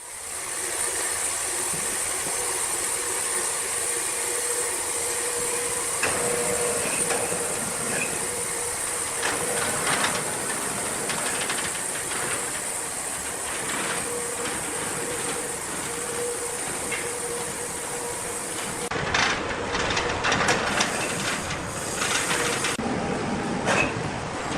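Sawmill machinery running, with a steady hum and hiss and scattered knocks and clatter of wood and metal. The clatter grows busier and louder near the end.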